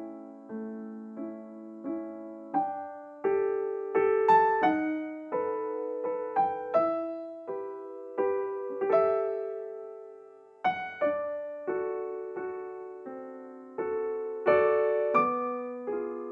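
Background music: a slow, gentle piano playing single notes and soft chords, each note struck and left to fade.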